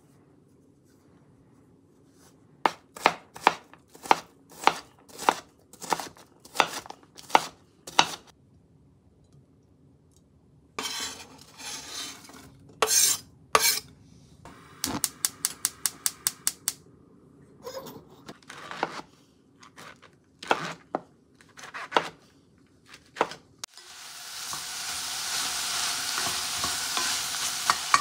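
A knife chops on a cutting board in steady strokes, about one and a half a second. Then comes scraping as the chopped onion is pushed off the board into a cast-iron pot, a quick run of knife taps and a few scattered knocks. About 24 seconds in, loud sizzling starts as onion and mushrooms fry in the Staub cast-iron pot and are stirred with a wooden spatula.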